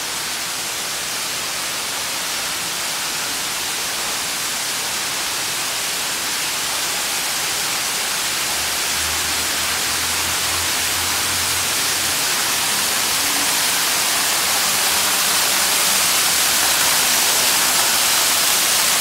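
Stormwater cascading down a tiled subway-station wall and splashing onto the platform floor: a steady rushing splash that grows steadily louder as the cascade is approached.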